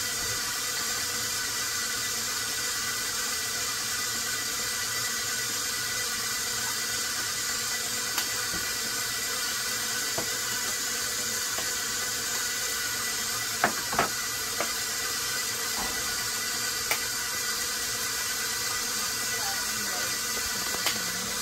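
A steady hiss, with a few light clinks and knocks of kitchenware: a glass measuring cup and a small metal saucepan being handled.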